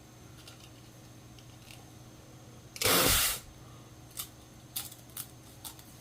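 A Pringles potato crisp being bitten, a single loud crunch about three seconds in, then a few faint clicks of chewing.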